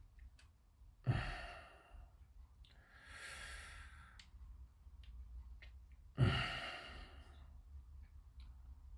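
A man sighing heavily twice, about a second in and again about six seconds in, with a softer breath drawn in between, out of frustration at fiddly model-kit assembly. Faint small clicks are heard between the sighs.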